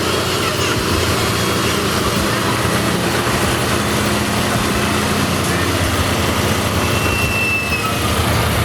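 Heavy haulage truck's diesel engine running steadily under a rumble of noise, with a brief high whine about seven seconds in.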